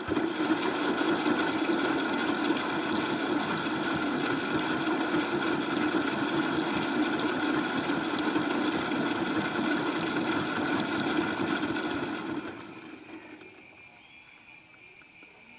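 Bosch front-load washing machine running at the start of its drum-clean cycle: a steady machine hum with water noise that stops suddenly after about twelve seconds.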